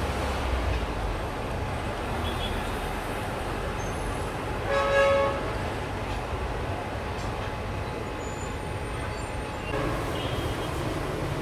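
A diesel locomotive's horn gives one short toot, about half a second long, about five seconds in, over the steady low rumble of the locomotive.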